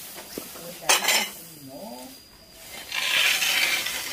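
Dry cut grass being raked up and gathered on a hard yard: a sharp scrape of the rake about a second in, then loud dry rustling of the grass near the end.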